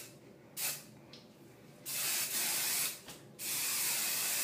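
Aerosol hairspray can spraying in short hissing bursts: a brief puff about half a second in, then two bursts of about a second each.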